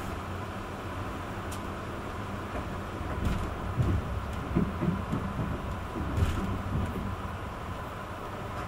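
Renfe AVE S-102 (Talgo 350) high-speed train running, heard inside the carriage: a steady rolling rumble and hiss. In the middle there are a few irregular low thumps and faint clicks.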